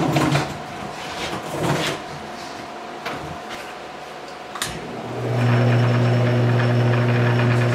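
A few knocks and clunks, then about five seconds in a click as a wood lathe is switched on and its electric motor starts, running on with a steady hum.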